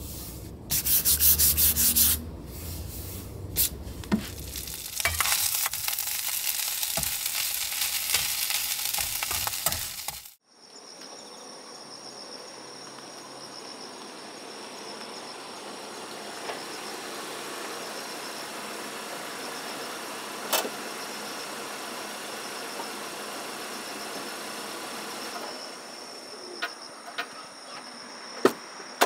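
Rubbing and scraping on a wooden board, with a rapid run of strokes about a second in and a few knocks. After a cut, crickets chirp steadily, with a few sharp clicks near the end.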